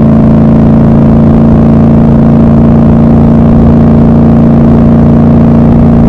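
Triumph Scrambler 1200 XC's 1200 cc parallel-twin engine running at a steady cruise, its exhaust note holding one even pitch with no revving or gear change.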